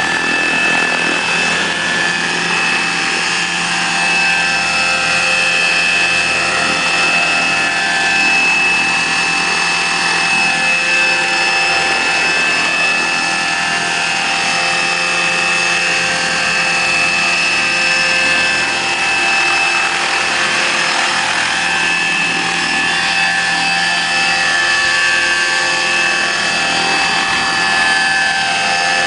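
Electric-powered radio-controlled scale model helicopter with a 1.8 m rotor running steadily in low flight: a high motor-and-gear whine with several steady tones over the rotor noise.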